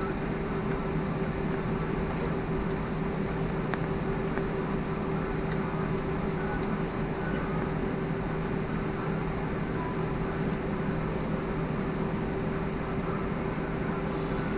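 Steady cabin hum of an airliner taxiing, its jet engines at low idle, heard from inside the cabin with a few constant tones over a steady rush.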